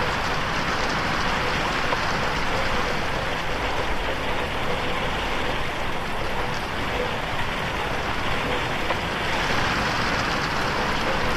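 Steady rain falling on a window pane, an even hiss.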